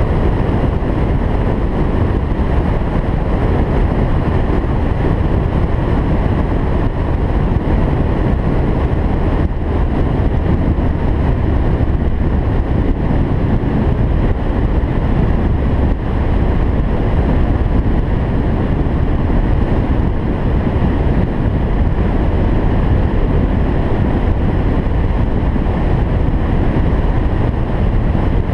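A moving car's steady road and wind noise, a low, even rumble that holds level throughout.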